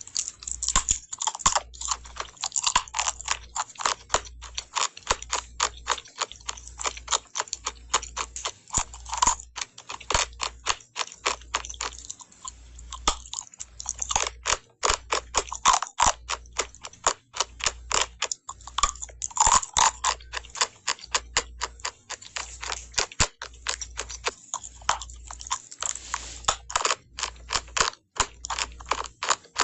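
Someone biting and chewing a brittle, crunchy food close to the microphone: a rapid, irregular run of sharp crunches.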